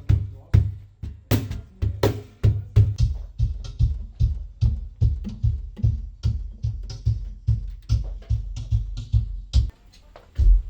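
Cajón played with the hands in a steady groove: deep bass strokes alternating with sharper slaps, with lighter ghost notes between. The playing stops shortly before the end, with one last hit after a brief pause.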